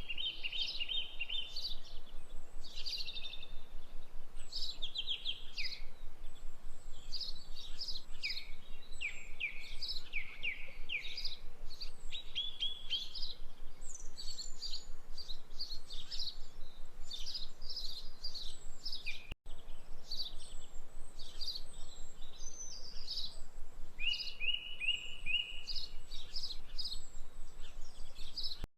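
Several songbirds chirping and trilling continuously in quick overlapping phrases, broken by a split-second cut in the sound about two-thirds of the way through.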